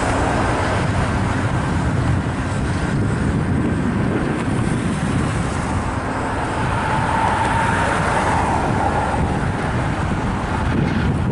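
The California Zephyr leaving on a pair of GE P42DC diesel locomotives, with its Superliner bilevel cars rolling past in a steady low rumble of wheels on rail. A faint higher whine comes in and fades around the middle.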